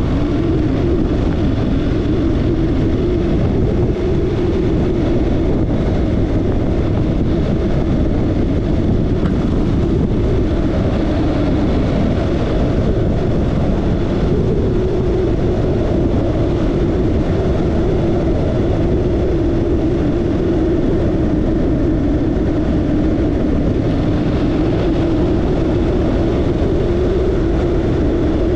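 Motorcycle on the move at a steady pace: engine running under rushing wind noise, the engine note drifting slightly up and down.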